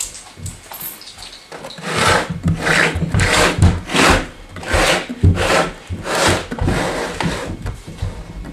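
A plastic Lego-brick model sliding and being turned on a wooden tabletop: a series of rasping scrapes with dull knocks, about two a second, starting about two seconds in.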